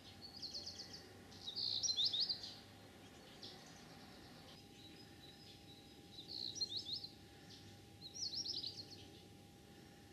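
Small songbirds chirping in short, rapid twittering phrases, four bursts in all, the loudest about two seconds in, over a faint steady hum.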